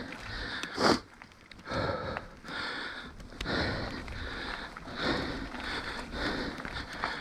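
A mountain biker breathing hard in short, rhythmic puffs a little more than once a second, with a sharp loud breath about a second in, close to the microphone and over the low rumble of tyres on a dirt trail.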